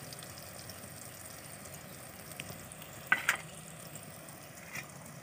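Thin eggplant slices frying in hot mustard oil in an uncovered pan, a steady sizzle. A brief sharp clatter about three seconds in.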